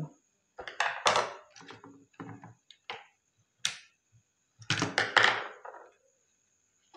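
Screwdrivers and wiring being handled against a wooden switchboard box on a table: a series of separate knocks and short clattering sounds, loudest about a second in and again around five seconds in.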